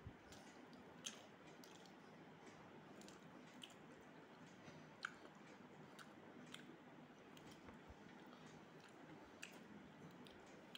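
Faint eating sounds: cooked rice squeezed and mixed by hand on a steel plate, with a few small scattered clicks over a low hiss.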